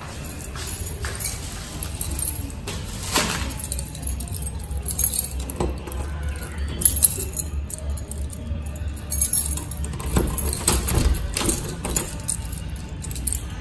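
A bunch of keys jangling, with metal clicks as a key is worked into a doorknob lock, over background music.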